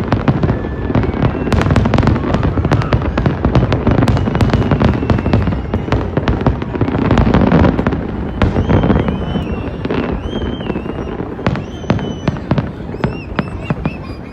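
Fireworks display: a dense, continuous run of rapid bangs and crackles over a deep rumble, thinning a little past the halfway point, where short high tones come in among the bangs.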